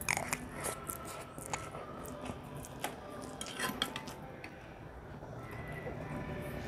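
Metal forks and spoons clinking and scraping against a ceramic bowl of fried noodles as two people eat, in scattered light clicks.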